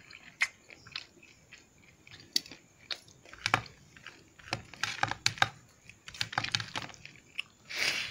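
A person eating rice and curry by hand: chewing with irregular sharp clicks and wet smacks coming in little clusters, and fingers mixing rice on a steel plate.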